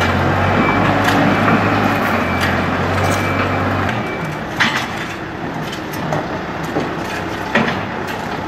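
A work machine's engine running with a steady low hum, cutting off about four seconds in, followed by a few sharp knocks.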